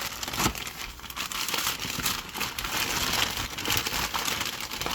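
Paper wrapping being crumpled and pulled off a model train car by hand: a continuous crisp crinkling and rustling with many small crackles.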